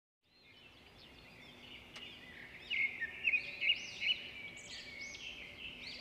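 Songbirds singing in a forest, many short overlapping chirps and whistled phrases, fading in at the start and growing louder about three seconds in.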